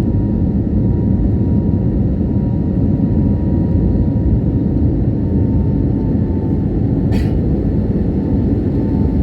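Airliner cabin noise after takeoff: a steady, loud low rumble of the jet engines and airflow, with a faint steady tone over it. A brief click about seven seconds in.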